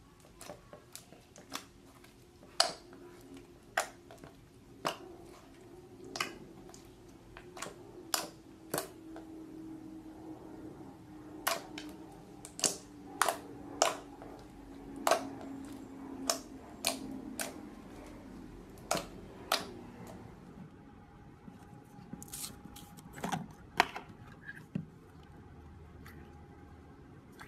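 Clear slime being squeezed and poked by hand, giving a string of sharp, irregular clicks and pops from air pockets in the slime, about one a second.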